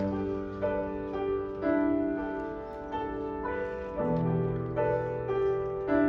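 Solo piano playing slow chords, a new chord struck about every second and left to ring, with a deeper bass note coming in about four seconds in.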